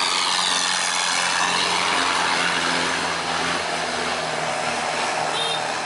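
Car engine on a Vietnamese longtail speedboat (vỏ lãi) running hard at high revs as the boat races past, its high note sliding down a little about a second in, with the rush of water thrown up by the hull and propeller.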